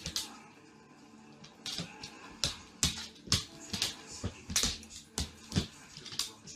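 A dog's claws and paws clicking and tapping on a hardwood floor as it pounces about: an uneven run of sharp taps starting about a second and a half in.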